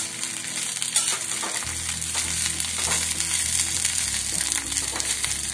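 Coriander leaves and garlic cloves sizzling in oil in a kadai over a low flame, with a steel spatula stirring and scraping the pan now and then.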